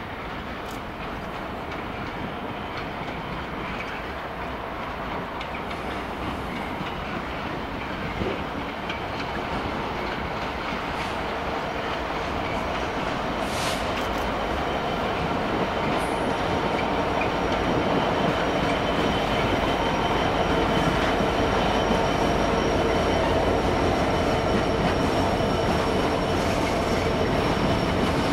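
Freight wagons of a passing train rolling by on steel rails, the rumble growing steadily louder, with thin steady wheel squeal joining in during the second half.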